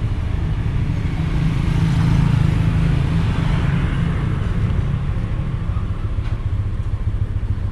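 A steady low engine rumble of motor vehicles on the road, swelling a little about two to four seconds in as traffic passes.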